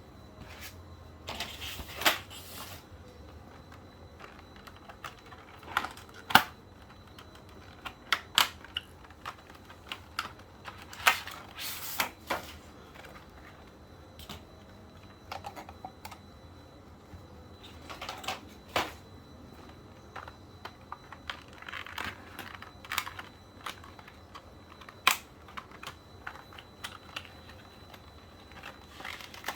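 Keys clicking on a NuPhy Air96 low-profile wireless mechanical keyboard, in irregular short spurts and single clicks with pauses between.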